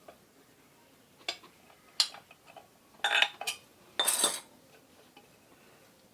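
Metal tools and ceiling-fan parts clinking as they are handled during a bearing replacement: a couple of sharp clicks, then two short rattling scrapes about three and four seconds in.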